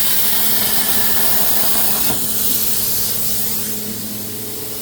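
Plasma cutter torch cutting steel with a loud steady hiss over a low hum. The hiss eases off about two seconds in and drops lower toward the end.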